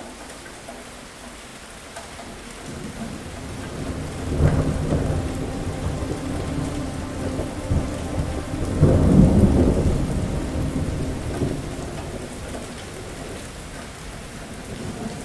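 Rain falling steadily while a long thunder rumble builds a few seconds in, swells twice, loudest about nine seconds in, and dies away after about twelve seconds.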